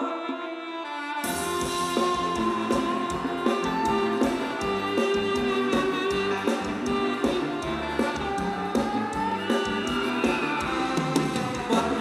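Thai ramwong dance music played by a live band. A melody is heard first, then the drums and bass come in about a second in and keep a steady, even beat.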